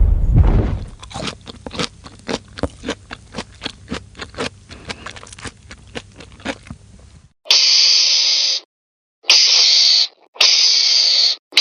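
Quiet, rapid, irregular clicking for about six seconds, then an animal hissing loudly in three bursts of about a second each, with a fourth starting at the very end.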